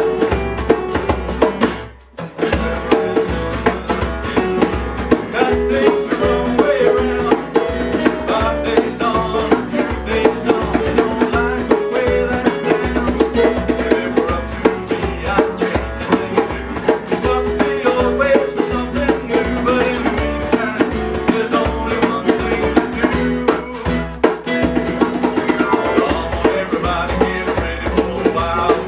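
A small band plays an up-tempo rock and roll song unplugged on acoustic guitars, strummed to a steady driving beat. The sound dips briefly about two seconds in, then the full band comes back in.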